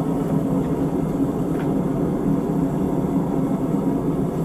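A forge running with a steady, even roar.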